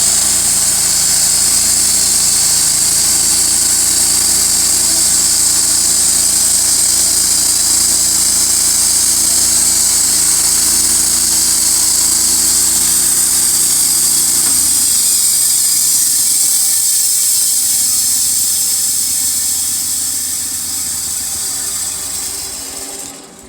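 Engine of a Wood-Mizer portable band sawmill running steadily under a strong high hiss. About two-thirds of the way through, the low engine note drops away, and the sound then fades out near the end.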